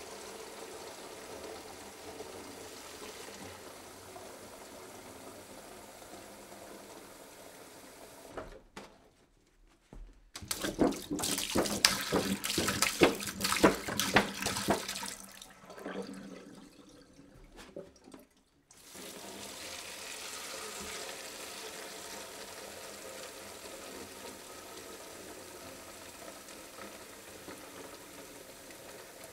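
Water pouring from a jug: a steady stream of running water, then a brief gap about nine seconds in. A louder, splashy pour follows for about five seconds, easing off before a steady stream resumes from about nineteen seconds.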